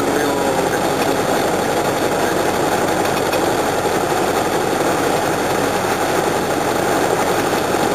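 Light aircraft's piston engine and propeller running steadily at low power while taxiing on the runway.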